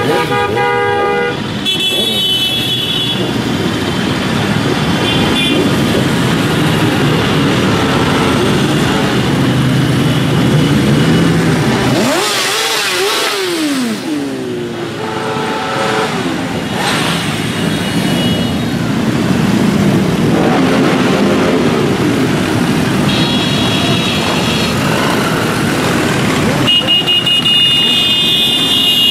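A steady stream of motorcycles riding past at low speed, their engines running and revving, with one bike's rising and falling rev about halfway through. Horns are sounded several times: near the start, about two-thirds of the way in and near the end.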